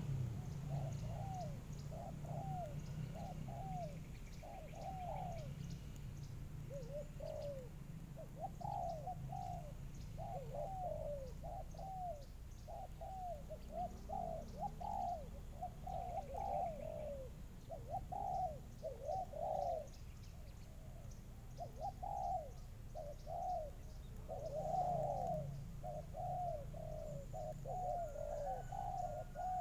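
Doves cooing over and over, short coo phrases following one another with only brief gaps.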